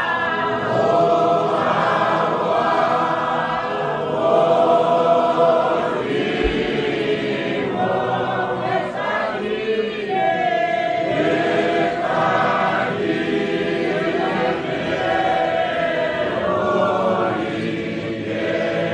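A choir singing together, several voices in parts, in a continuous stretch of song.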